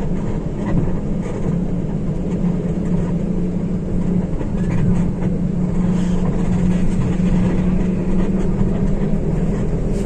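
A motor running steadily, giving a constant low hum.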